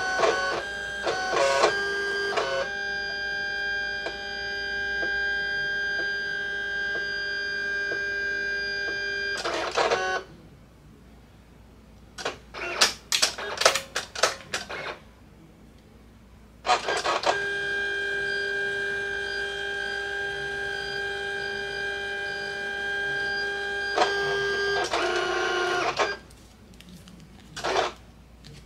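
Electronic craft cutting machine running through a cut on paper. Its motors whine steadily on several fixed tones for about seven seconds, pause for a few short whirs and clicks, then whine again for about seven seconds.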